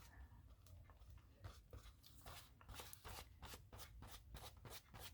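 Faint, scratchy strokes on paper, sparse at first and then about three a second.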